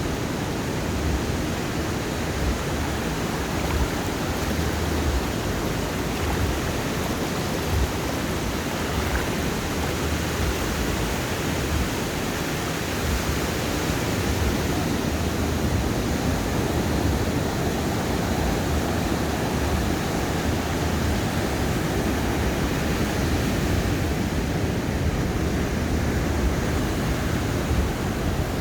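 Ocean surf washing onto a sandy beach, a steady continuous rush of waves without distinct single crashes.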